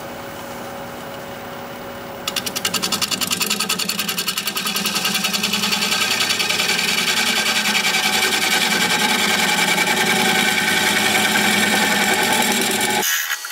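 Wood lathe running with a live oak bowl blank. About two seconds in, a carbide-insert turning tool starts cutting the bowl's inside, giving a loud, fast, even rattle. The cut stops abruptly near the end.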